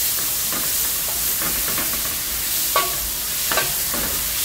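Minced garlic and onion sizzling in oil in a large aluminium pot, stirred with a wooden spatula that scrapes and knocks against the pot; the loudest knock comes about three seconds in.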